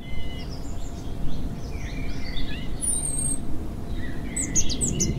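Several birds chirping and calling, with a burst of quick high calls near the end, over a low steady rumble of outdoor noise.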